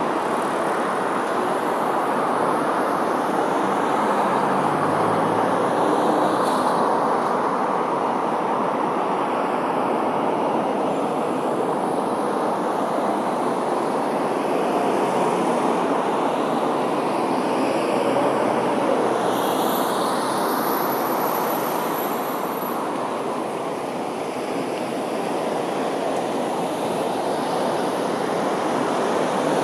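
Steady street traffic noise from queued cars idling and vehicles moving along the road, growing a little louder near the end.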